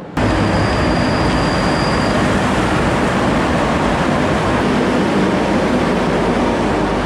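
Madrid Metro train running: a loud, steady rush of rail noise, with a thin high wheel squeal in the first couple of seconds.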